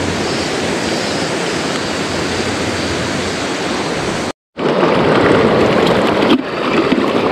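Steady rush of fast, shallow river water over rocks. The sound cuts out for a moment about four seconds in and comes back a little louder, with a few small clicks.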